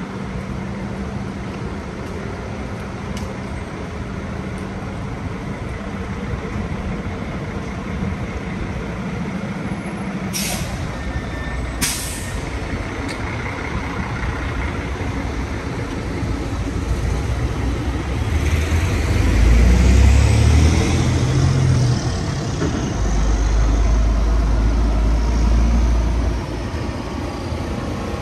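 City street traffic. About ten seconds in, two short hisses like air brakes release; later a heavy vehicle passes close by, and a low rumble swells and then fades.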